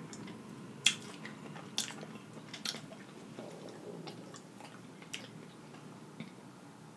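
Close-miked chewing of food, mouth closed, with sharp wet clicks. The clicks come about once a second at first, then twice more, further apart, near the end.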